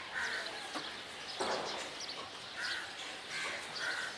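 Birds calling: several short calls at irregular intervals, with faint chirps higher up. A brief rush of noise about a second and a half in.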